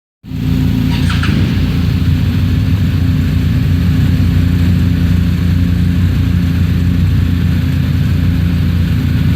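A vehicle engine running steadily at idle, with a brief high chirp about a second in.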